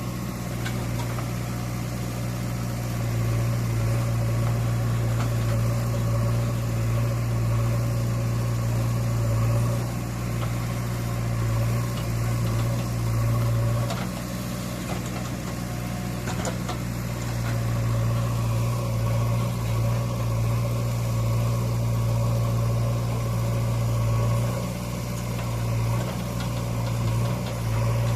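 JCB 3DX backhoe loader's diesel engine running steadily while it works, its low drone swelling louder and easing back in long stretches as the load comes on and off.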